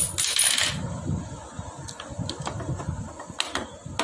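A short burst of hissing in the first second, then scattered light metallic clicks and taps from work on a Honda Shine motorcycle engine's cylinder head and valve gear, over a low background rumble.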